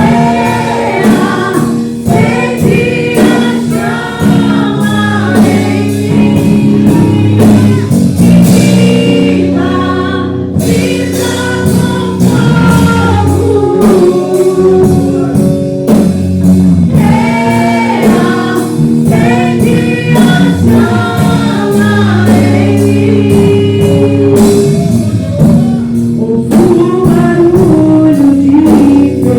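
Church praise band playing worship music with singing, over sustained low chords and a steady beat.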